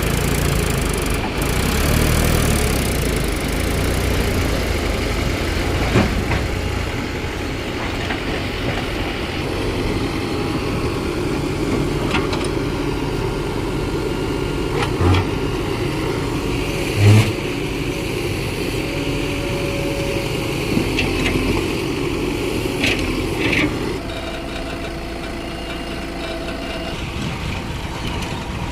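Diesel engine of a backhoe loader running under work, its note shifting now and then, with a few sharp knocks partway through. The engine settles lower and quieter near the end.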